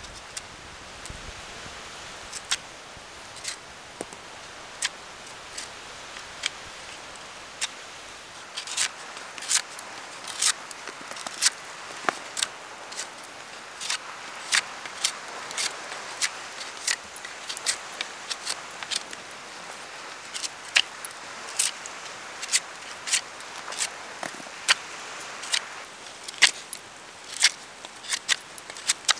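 Campfire crackling: sharp, irregular pops over a steady hiss, coming more often from about eight seconds in.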